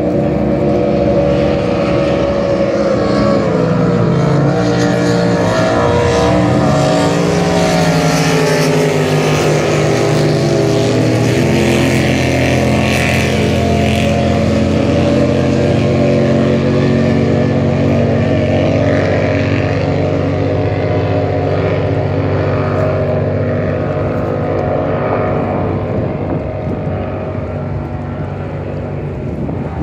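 Unlimited-class racing powerboats running flat out, a loud continuous engine drone whose pitch glides and shifts as the boats pass. It fades somewhat near the end.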